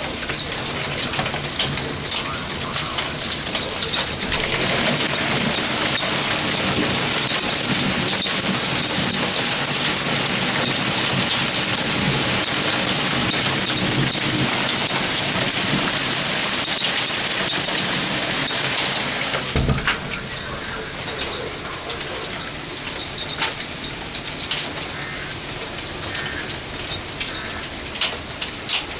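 Hail and rain pelting a lawn, a walkway and parked cars: a dense patter of small impacts. About five seconds in it swells into a louder, steady hiss that lasts some fifteen seconds, then drops back after a single thump.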